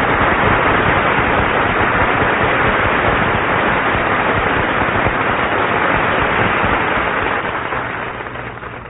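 Audience applauding, the applause dying away near the end.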